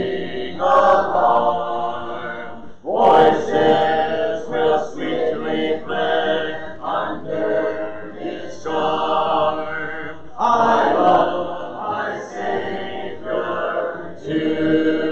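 Congregation singing a hymn a cappella, voices only with no instruments, with a new phrase starting about three seconds in.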